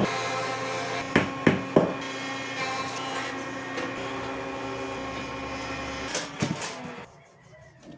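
Three quick knocks on wood about a third of a second apart, over a steady workshop hum, then a couple more knocks about six seconds in before the hum drops away.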